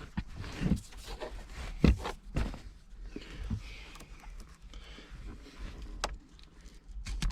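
Handling noise of hand tools and a rag being moved about: scattered knocks and clicks with some rustling, the loudest knock about two seconds in.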